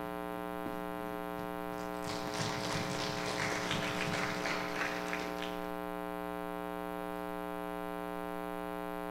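Steady electrical mains hum from the hall's microphone and sound system. From about two seconds in, a few seconds of scattered noise from the audience rise over it and fade out.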